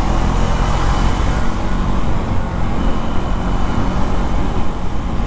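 Third-generation KTM 390 Duke's single-cylinder engine pulling as the motorcycle accelerates through about 50 km/h, under a steady rush of wind and road noise.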